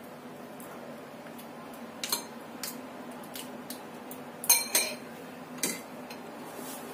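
Metal spoons clinking and scraping against a bowl as soft minced meat paste is scooped and worked. About five short, sharp clinks, the loudest about four and a half seconds in, over a faint steady hum.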